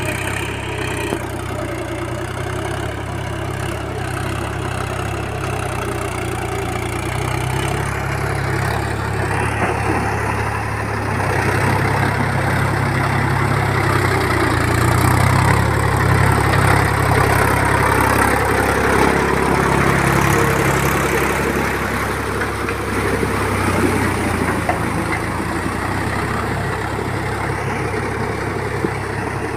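A farm tractor's diesel engine running steadily under load as it puddles a flooded paddy field on iron cage wheels, with the churn and splash of muddy water. It grows louder as the tractor comes close around the middle, then eases off as it moves away.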